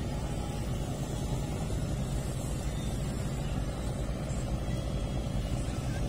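Steady low drone of a river tugboat's engine running at an even pace as it pushes a loaded barge.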